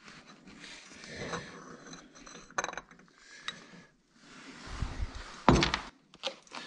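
Metal scooter variator parts (ramp plate and rollers) clinking and clicking as they are handled and lifted out, with a louder clunk about five and a half seconds in.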